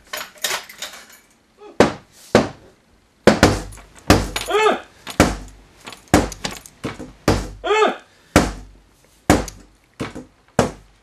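Repeated heavy pounding on a closed wooden door, blows coming roughly in pairs about two a second, with two short rising-and-falling cries among them.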